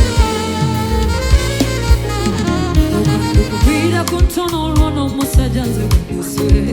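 Gospel worship band playing an instrumental passage: sustained keyboard chords and bass under a bending melodic lead line, over a steady drum beat.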